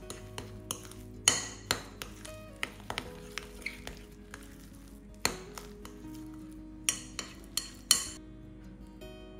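Metal fork stirring mashed boiled potato and mayonnaise in a glass bowl: irregular clinks and scrapes of the fork on the glass, a handful of them sharp and loud. Soft background music plays underneath.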